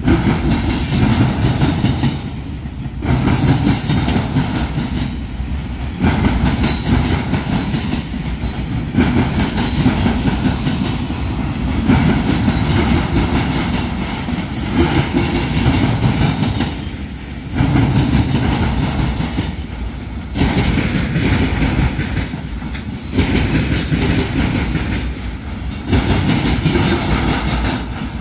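A train's cars rolling past, their wheels clicking over the rail joints under a steady rumble. The sound swells and dips every few seconds as car after car goes by.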